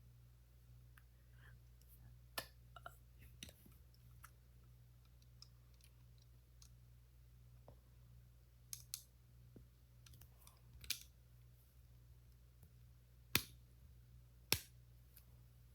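Small plastic Lego pieces being handled and pressed together, giving scattered sharp clicks over a faint low hum, with two louder clicks near the end.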